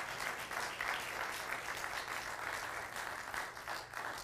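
Church congregation applauding, many hands clapping together, the clapping thinning out near the end.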